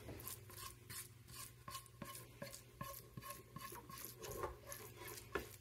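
Silicone spatula scraping cooked onions out of a nonstick frying pan into a pot of riced potatoes: a run of faint, quick scrapes.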